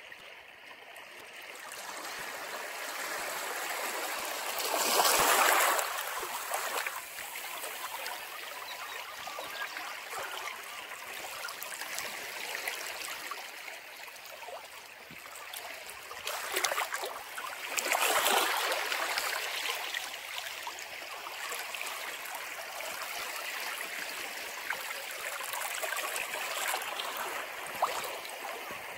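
Ocean waves washing in, a steady hiss of churning sea water with two louder breaking surges, one about five seconds in and another about eighteen seconds in.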